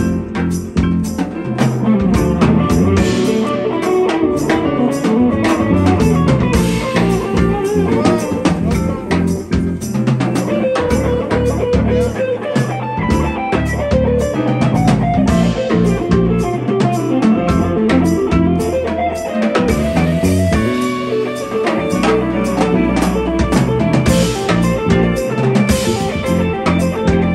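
Live jazz band playing an instrumental number: vibraphone struck with four mallets, electric bass, electric guitar and drum kit.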